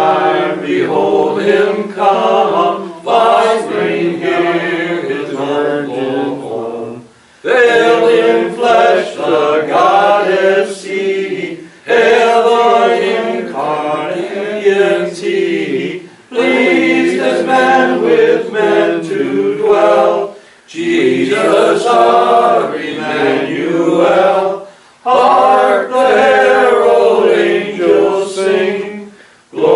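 A hymn sung a cappella by a group of voices, in phrases of about four to five seconds with short breaks for breath between them.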